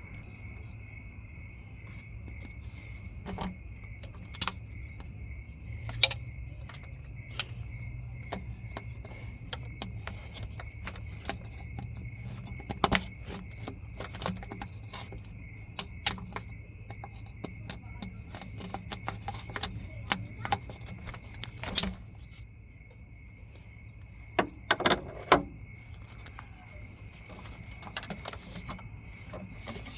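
Metal tools and engine parts clinking and tapping irregularly during an engine teardown, with a few sharper knocks, over a steady high-pitched tone and a low hum.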